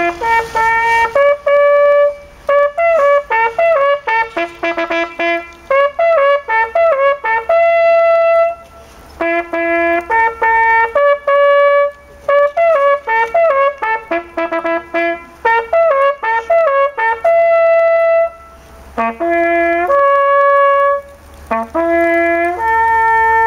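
Brass hunting horn playing a hunting signal: a lively call of quick runs and held notes. The phrase is played twice, then a shorter closing phrase ends on a long held note.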